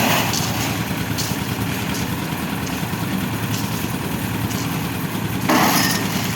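Concrete mixer's engine running steadily, with a brief louder noisy rush about five and a half seconds in.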